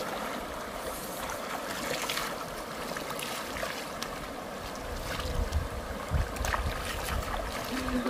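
Shallow stream water rushing steadily, with splashing as people wading in it scoop up water with their hands and splash it onto their faces; a few louder splashes come in the second half.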